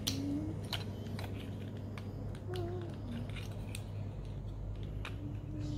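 Hard plastic parts of a Transformers Cyberverse Shockwave action figure clicking and snapping as they are moved, with many sharp irregular clicks over a steady low hum.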